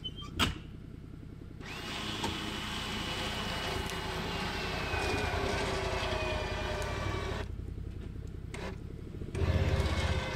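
Electric winch on a Can-Am Defender UTV pulling the stuck machine out of a creek, its motor whining in a tone that slowly sinks in pitch under load over the engine running at idle. The winch stops after about five seconds, and about two seconds later the engine revs up and the winch whine starts again.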